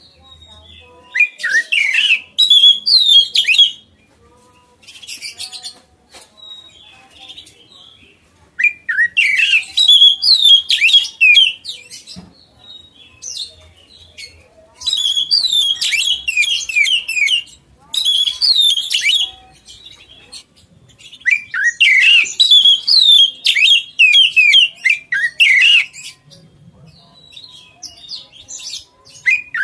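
Caged oriental magpie-robin (kacer) singing loudly in repeated bouts of rapid, varied, sweeping notes, each bout a few seconds long with short pauses between.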